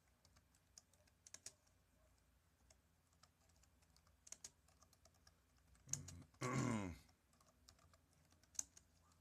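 Computer keyboard keys clicking in scattered runs as a search phrase is typed. About six and a half seconds in, a short wordless voice sound falls in pitch.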